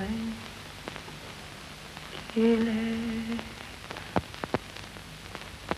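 A woman humming: a held note trails off at the very start, then a louder steady note about two and a half seconds in lasts about a second. Three sharp clicks follow in the last two seconds, over a steady hiss.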